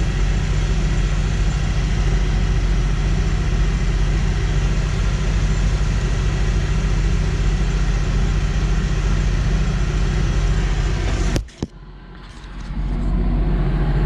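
Kubota M135GX cab blower fan running steadily, a rush of air over a low hum, switched on to test it after an evaporator core replacement. About eleven and a half seconds in the sound drops out abruptly, then builds back up over about a second.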